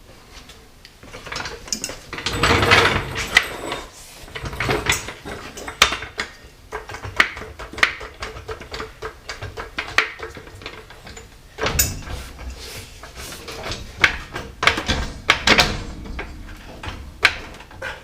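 Irregular knocks, clanks and scrapes of hand work on a car's front brake and suspension, with a louder rattling stretch about two seconds in and more clanks near the end.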